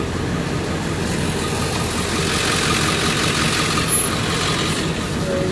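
A vehicle's engine and road noise heard from inside the cabin, running steadily while driving slowly. A hiss swells up for a couple of seconds in the middle.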